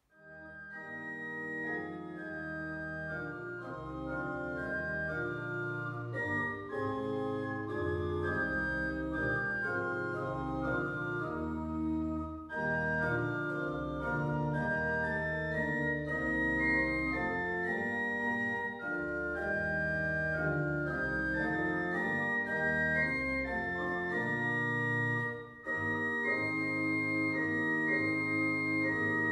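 Church organ playing a slow piece in held chords, with short breaks between phrases about twelve and twenty-five seconds in.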